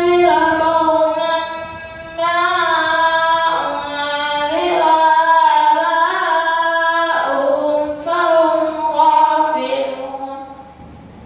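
A boy reciting Quran verses in the melodic chanted style of tajweed recitation: long held notes with ornamented glides in pitch, in three phrases separated by short pauses for breath, the last phrase ending about a second before the end.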